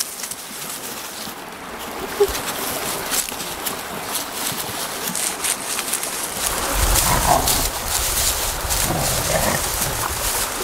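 A young animal making a few short calls, over light rustling and clicks, with a low rumble coming in about six seconds in.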